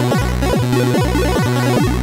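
Chiptune background music: square-wave synth bass and melody over a fast, even beat with quick downward pitch drops.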